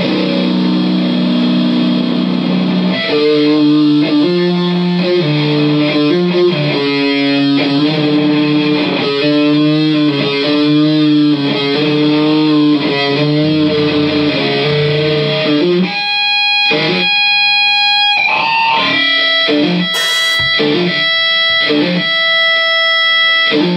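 Live band music led by electric guitar: a held chord, then a repeating riff of notes that change every half-second or so. About two-thirds in it switches to sharp, clipped chords with a sliding note between them.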